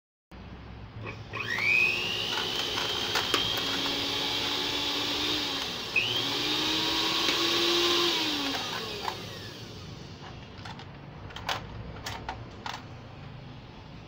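A Universal brand blender's motor, run on the bare base without the jar, spins up with a rising whine, runs steadily for a few seconds and winds down. It is started again, runs a few more seconds and winds down, with its new plastic drive coupling fitted. Afterwards come a few sharp clicks of the push buttons.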